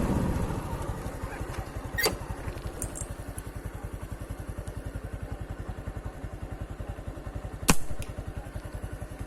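A small engine running steadily at low speed with an even, quick pulse. A sharp click about two seconds in and a louder crack near the end.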